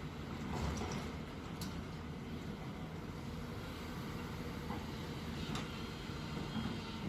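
Hyundai excavator's diesel engine running steadily, with a few short clicks and knocks over it.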